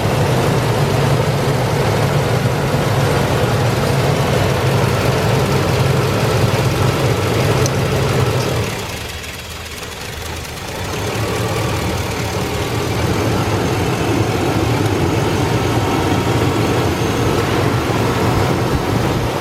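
2004 Chevrolet Avalanche's 5.3-litre V8 running steadily at idle, dipping briefly quieter about nine seconds in.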